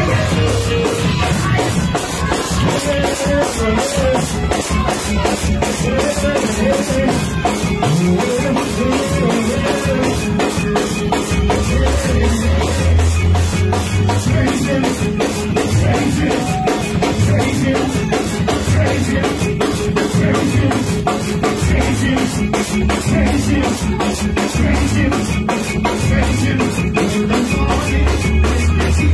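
A live church band playing an upbeat praise groove: a drum kit keeping a steady, fast beat over bass and keyboard.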